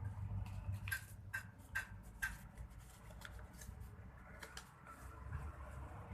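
Sheet of paper being folded and creased by hand: four sharp crackles in quick succession about a second in, then a few softer ones, over a low steady hum.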